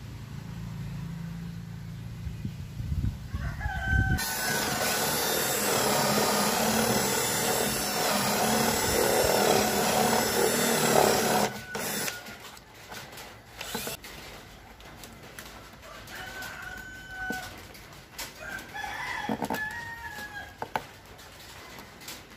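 A rooster crows several times, the longest call near the end with a rise and fall in pitch. In the middle comes a loud, steady rushing noise lasting about seven seconds, followed by scattered knocks and clicks of work on the box.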